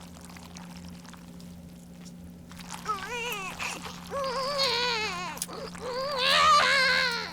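A high-pitched voice wailing in three wavering, whining calls, starting about three seconds in, the last the loudest, over a steady low hum.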